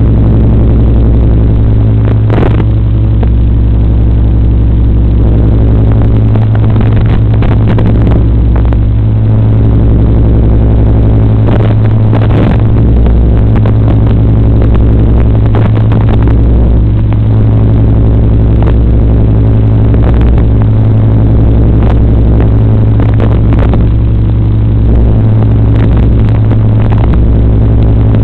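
Loud, steady low buzz on the analog FPV quadcopter's video-link audio: a stack of unchanging tones that do not follow the flying, broken now and then by short crackles.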